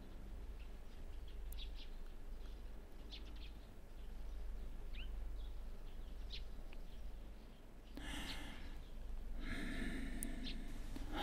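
Faint background ambience of small birds chirping in short, scattered calls over a low steady hum, with a louder breathy sound about eight seconds in.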